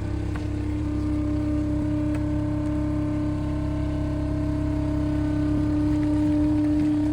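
A motor vehicle's engine running at a steady speed, a constant hum over a low rumble, growing slightly louder near the end.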